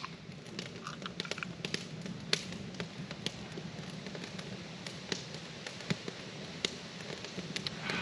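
Wood campfire crackling, with sharp irregular pops and snaps scattered through a steady low hiss.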